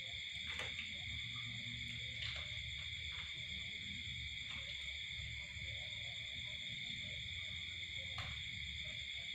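Steady chorus of crickets, a continuous high trill at several pitches over a low steady hum, with a few faint clicks.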